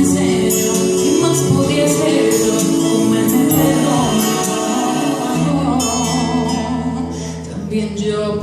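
Woman singing a Christian song into a handheld microphone over instrumental accompaniment, the melody gliding between held notes.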